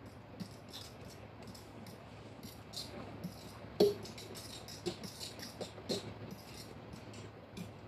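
Wooden spoon stirring thick mashed pumpkin in a glass bowl: a run of short scrapes and clicks against the glass, with one louder knock about halfway through.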